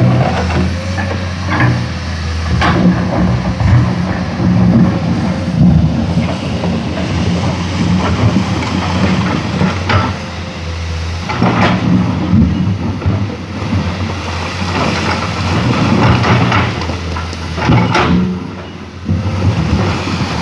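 Komatsu PC210 hydraulic excavator at work, its diesel engine running steadily under load, with a few sharp knocks and clanks as it digs.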